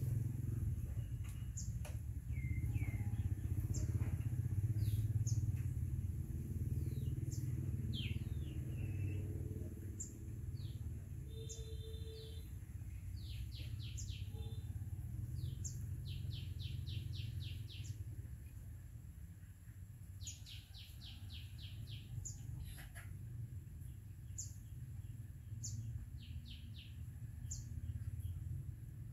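Small birds chirping over and over, with several quick runs of rapidly repeated high notes, over a steady low rumble.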